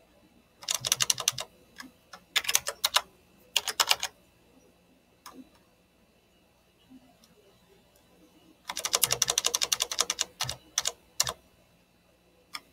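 Computer keyboard typing in short bursts of rapid keystrokes with pauses between. The longest run comes about nine seconds in, followed by a few single key presses.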